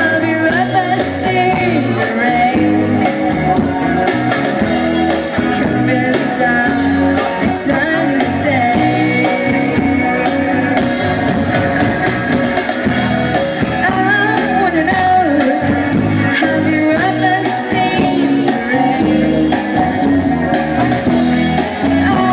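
Live rock band playing, with electric guitar and drum kit, and a melodic line that may be a voice.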